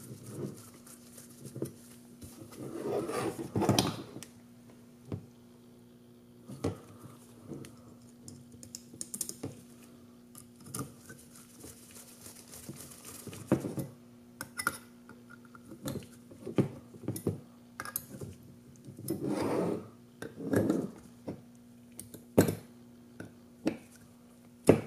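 Small clicks, taps and scrapes of screws, a screwdriver and drone frame parts handled on a tabletop as screws are run through the frame arm and brace into a brushless motor, with a few louder rattles of the parts being moved.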